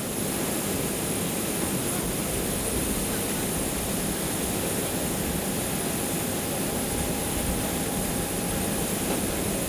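Steady jet aircraft turbine noise: a constant rushing hum with a thin, high, steady whine.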